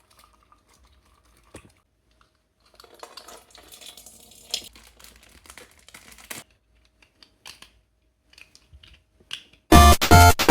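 Faint scattered clicks and crinkling handling noise, then loud synthesizer music cuts in abruptly near the end.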